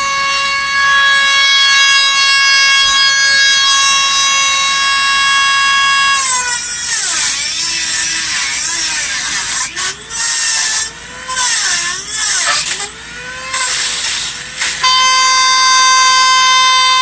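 Handheld grinding tool with a cutting wheel running at a steady high whine, then cutting metal from about six seconds in, its pitch sagging and wavering under load with brief dropouts, before spinning free again near the end.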